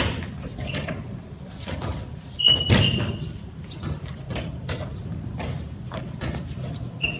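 Light, scattered taps of badminton rackets hitting balloons, with a louder knock and a brief high squeak about two and a half seconds in and another short squeak near the end.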